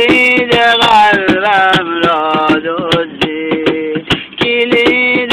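A man singing long held notes that bend and waver in pitch, without clear words, over a crisp percussive beat of about four strikes a second.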